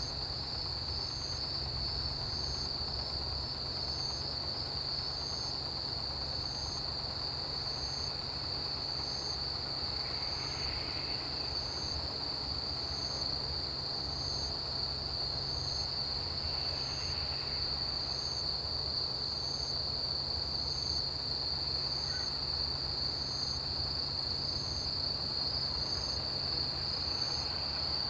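Autumn chorus of crickets and other grass insects: one steady high trill, a regular chirp repeating about every two-thirds of a second, and faster high pulsing on top, with a low steady rumble beneath.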